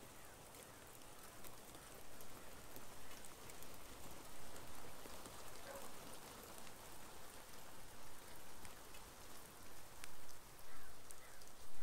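Small hail falling on a wooden deck, wooden steps and garden ground: a steady hiss dotted with many sharp ticks of single stones striking.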